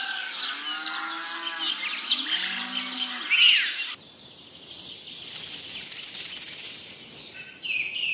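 Birds chirping and twittering busily, with low mooing calls like cattle lowing about one to three seconds in. The sound drops away suddenly near four seconds, and then a snake's high, dry, buzzing hiss runs for about two seconds, followed by a few short bird-like whistles.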